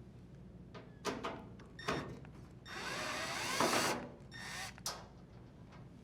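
Drill driver unthreading screws from a GE dryer's front panel, with a few clicks of the bit and screws, then a run of about a second and a half and a shorter second burst.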